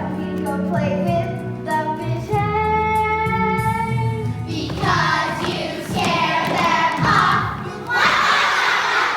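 Children singing a show tune together over a musical accompaniment. One long held note comes in the first half, then a fuller, busier passage.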